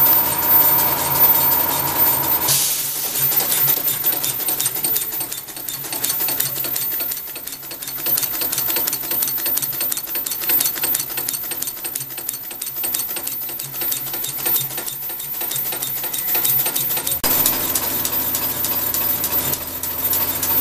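7¼-inch gauge Corpet-Louvet 0-6-0 tank steam locomotive running on compressed air on a test stand, its cylinders giving a fast, even train of exhaust beats over the clatter of its rods and valve gear.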